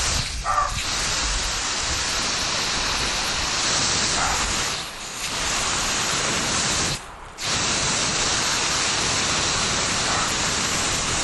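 Water spraying from a garden hose nozzle onto plants: a steady hiss that briefly drops off about five seconds in and cuts out for a moment about seven seconds in.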